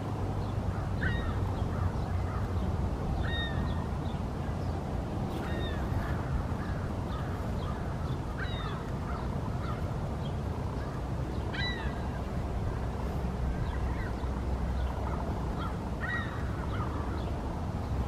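Canada geese honking: short single calls scattered every couple of seconds, over a steady low rumble.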